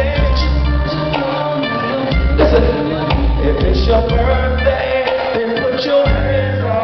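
Live band music at concert volume: deep held bass notes that come and go in a repeating pattern, with drums and keyboards over them.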